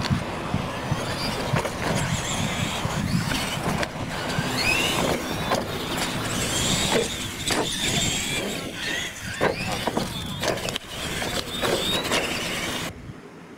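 Radio-controlled monster trucks racing on dirt, their motors whining up and down in pitch as they speed up and slow down, with tyres scrabbling and occasional sharp knocks. The sound drops off suddenly near the end.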